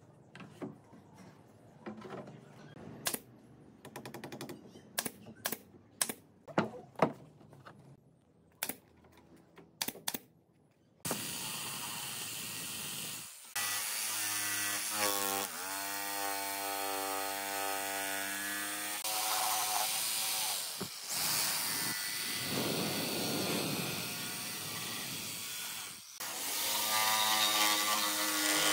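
Scattered sharp knocks and clicks for about the first eleven seconds, then a power tool runs continuously: an electric jigsaw cutting curves in a pine board, its motor pitch wavering and dipping under load. Near the end another handheld power tool runs louder on the board's edges.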